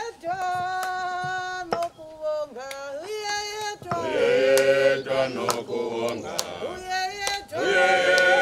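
A single voice leads a hymn line with long held notes, then about four seconds in a congregation of men and women joins in singing together.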